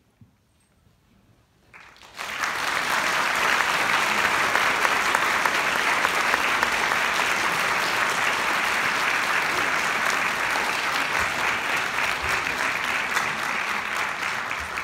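Audience applause that breaks out suddenly about two seconds in, after a short near-silent pause, and carries on steadily as a dense patter of many clapping hands.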